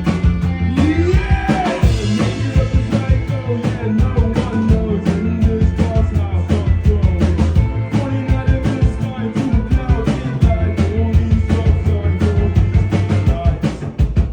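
Live band playing rock music, with a steady beat and a deep bass line.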